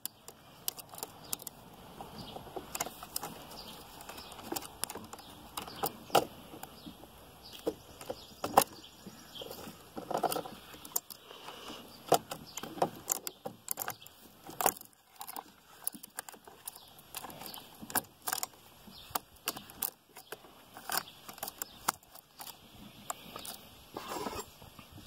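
Loose saw chain clinking and rattling as gloved hands work it around the chainsaw bar and drive sprocket, with many irregular small metal clicks and taps.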